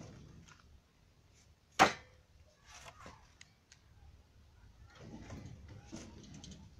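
Cut branches being handled at a woodpile: one sharp wooden knock about two seconds in, then lighter clattering and rustling of sticks.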